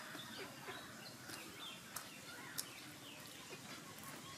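Small birds chirping faintly, many short falling chirps scattered through, over a low background hiss. Two sharp clicks come a little past the middle, about half a second apart.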